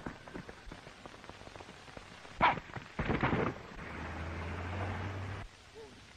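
Old film soundtrack with a constant hiss and scattered knocks, then a sharp loud crack about two and a half seconds in. After a short burst of noise, a car engine runs steadily for about a second and a half and then cuts off.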